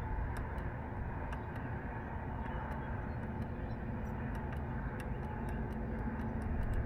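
Steady machinery hum of rooftop HVAC equipment running, with a few faint steady tones in it and scattered light ticks.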